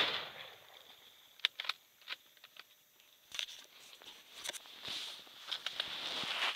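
A gunshot ringing out and fading over about half a second, followed by a few sharp clicks and then soft, irregular rustling.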